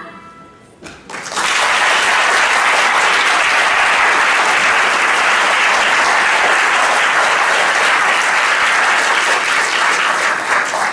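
Audience applauding: a brief lull, then a full round of clapping from about a second in that holds steady and starts to thin near the end.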